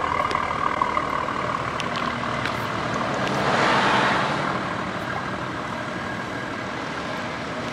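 BMW M340i's turbocharged 3.0-litre straight-six idling steadily through an aftermarket Valvetronic Designs exhaust. A brief rushing swell rises and fades about three and a half seconds in.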